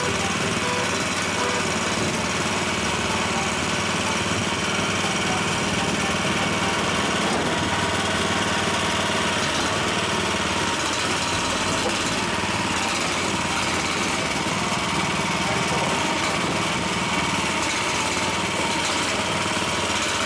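Small engine of a Chinese mini excavator running steadily as the machine drives forward on its rubber tracks.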